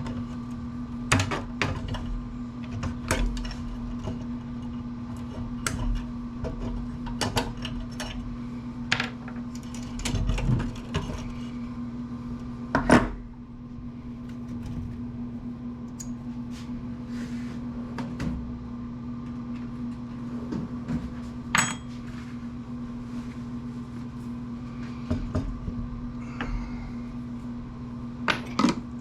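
Irregular clicks and clinks of hand tools and loose metal parts during disassembly of an amplifier's metal chassis, over a steady hum. A few sharper knocks stand out, one just before the middle and one about three quarters of the way through.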